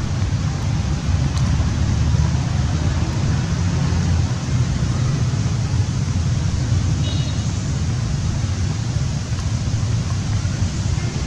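Steady low rumble of wind buffeting the microphone outdoors, loud and unbroken, with no voices.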